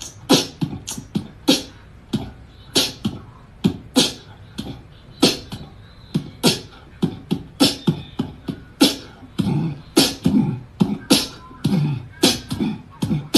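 A beatbox-style percussive beat: a quick, uneven run of sharp hits with low thumps, about two or three a second.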